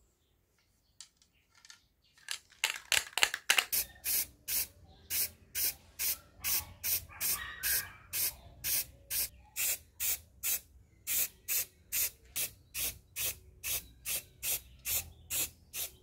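Aerosol can of acrylic lacquer spray paint spraying in short hissing bursts, about two a second, as it paints plastic fan blades. The spraying starts a couple of seconds in, with quicker, closer bursts at first.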